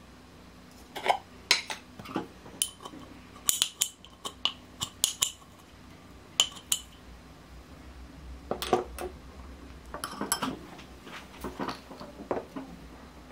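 Metal spoon clinking and scraping against a glass jar while scooping out solid coconut oil, heard as a run of sharp, irregular clicks. Later the jar is set down and the spoon clinks against the bowl.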